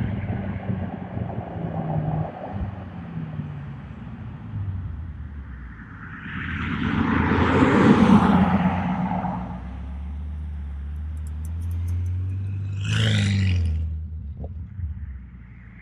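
BMW F90 M5 Competition's twin-turbo V8, fitted with aftermarket downpipes and a Stage 2 tune, driving past: the engine sound swells to a loud peak about eight seconds in and fades away, then settles to a lower rumble with another short loud burst near the end.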